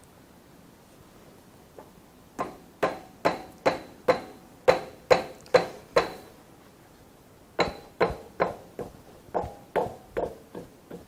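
Hammer blows ringing on the cast-iron gap piece of a lathe bed, knocking it loose from its two locating pins: two runs of even strikes, about two to three a second, with a short pause between them.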